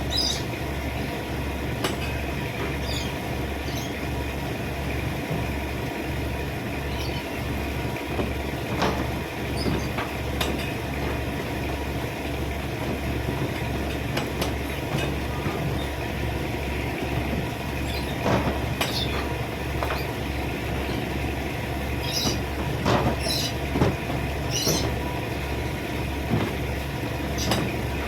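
A large engine running steadily, with an even low throb a little over once a second, and occasional short high chirps above it.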